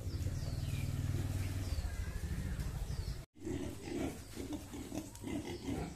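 Pigs grunting in a pen, with a long low rumbling grunt for the first two seconds and shorter grunts after a brief dropout about three seconds in. Small birds chirp faintly in the background.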